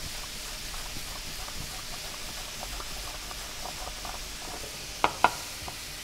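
Carrot being julienned on a handheld plastic mandoline slicer: faint repeated rasping strokes over a steady hiss. Two sharp clicks come about five seconds in.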